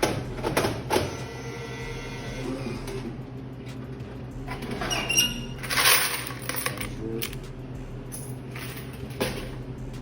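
Coins clinking and clattering as they are handled, with sharp knocks near the start and end and a burst of metallic jingling with a short ring about five seconds in. A steady low hum runs underneath.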